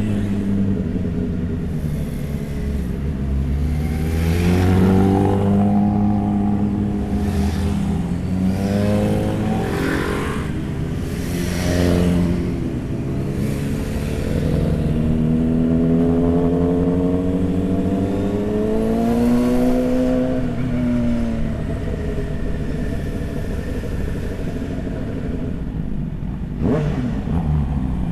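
Motorcycle engine being ridden hard, its pitch climbing and dropping again and again as it revs up through the gears and eases off, with a sharp crack near the end.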